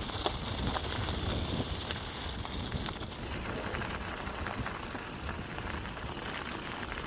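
Mountain bike rolling downhill on a dirt trail: tyres running over dirt and small rocks, with wind rushing on the microphone and scattered light clicks and rattles from the bike.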